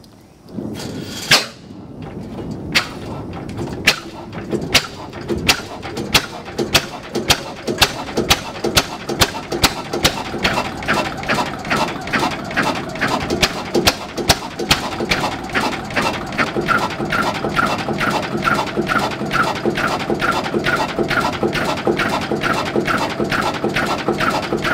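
1928 Modag D4 single-cylinder stationary diesel engine starting: a sharp first firing about a second in. Its exhaust beats then come faster over the next ten seconds and settle into a steady run of about two and a half beats a second.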